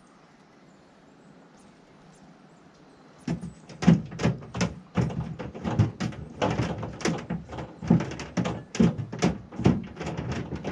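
Irregular knocks and thumps in a fishing boat, two or three a second. They start about three seconds in, after a faint steady hiss.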